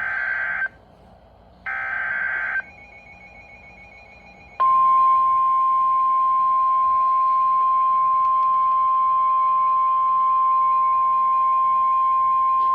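NOAA Weather Radio EAS alert: two short buzzy SAME digital header bursts about a second apart, then about four and a half seconds in the steady 1050 Hz warning alarm tone, held without a break. Together they signal a severe thunderstorm warning.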